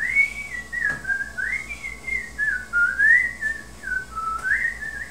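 A person whistling a tune: one clear pitch moving up and down in short phrases.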